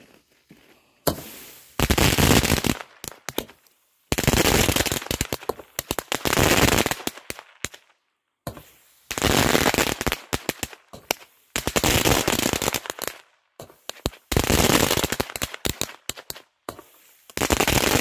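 Small seven-shot crackling mine cake firing: a blast about a second in, then mine after mine every couple of seconds, each a dense, rapid crackle lasting a second or two.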